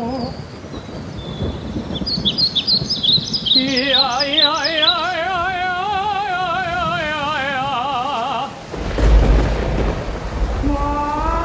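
Sound-designed rainstorm: steady rain with a few high chirps, and a pitched tone wavering with wide vibrato for about five seconds. About nine seconds in a loud rumble of thunder breaks in, followed by a slowly rising glide.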